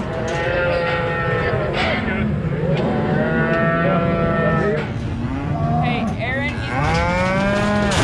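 Several cattle mooing, long drawn-out calls overlapping one another. One call rises in pitch about six seconds in.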